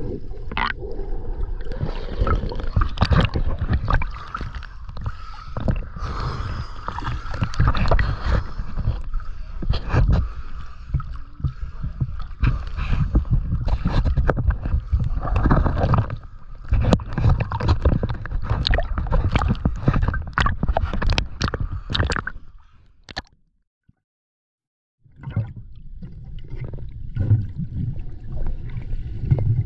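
Water sloshing and gurgling against a camera dipped in and out of the water beside a catamaran hull, with many sharp splashes and knocks. The sound drops out to silence for about a second and a half near the end, then the water noise resumes.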